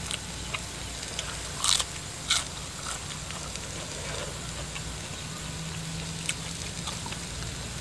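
Pork sizzling on a charcoal-heated moo kratha dome grill pan, with small clicks of chopsticks and two short crunchy bursts of eating about two seconds in.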